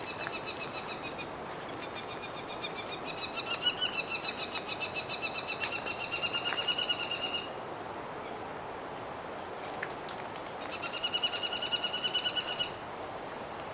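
A rainforest animal calling in a rapid, pulsing high trill, in two bouts: a long one that swells and then stops about halfway through, and a shorter one near the end. It sounds over a steady rushing background.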